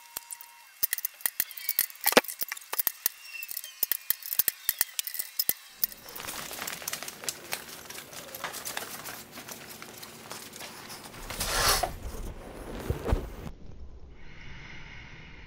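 Wooden handle blanks clacking and knocking sharply as they are set into a multi-spindle gang lathe, then a shop machine's motor starting about six seconds in and running steadily, with a couple of louder rumbles near the end.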